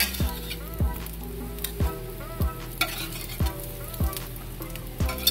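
Food sizzling in hot oil in a frying pan, under background music with a steady drum beat.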